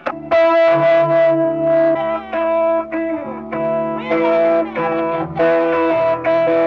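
Electric guitar being tuned, played through an amplified, slightly distorted effects chain: strings are plucked and left to ring, re-struck every second or so, with a few small slides in pitch as a tuning peg is turned.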